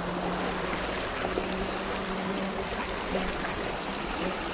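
Sea water washing over coastal rocks, a steady rush of surf and running water, with a faint steady low hum underneath.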